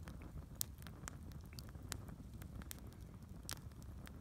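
Log campfire crackling: irregular sharp pops and snaps from the burning wood over a low rumble, with two louder pops, one just after the start and one near the end.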